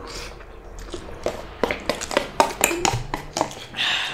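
Eating utensils clicking and clinking against a bowl of noodles. A quick run of sharp clicks, a few of them with a slight ring.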